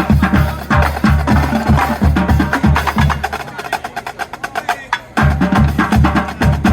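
Marching drumline playing a cadence: snare rolls and stick clicks over steady bass drum hits about two to three a second. The bass drums drop out for about a second and a half past the middle, then come back in.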